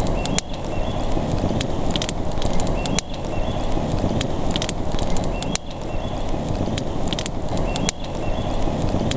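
Campfire crackling, with irregular sharp pops and snaps over a steady rushing noise.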